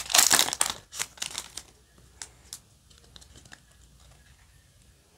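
Foil wrapper of a Yu-Gi-Oh! booster pack crinkling as it is torn and pulled open, loud for about the first second and a half. After that only a few faint clicks.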